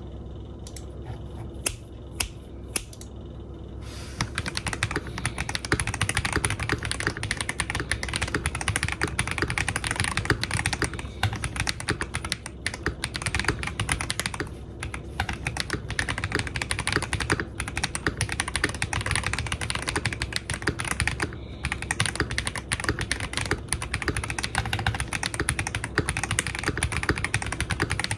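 Typing test on an NJ80 mechanical keyboard with Holy Panda tactile switches, a polycarbonate plate and Cherry-profile PBT keycaps: a few single keystrokes at first, then continuous fast typing from about four seconds in.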